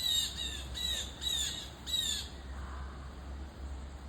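Blue jay calling: a quick run of five 'jay' calls, each sliding down in pitch, in the first two seconds.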